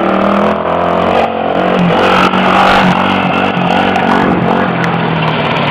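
Small engines of a mini quad and a go-kart running steadily as they drive close past, with a wobbling, buzzing engine note.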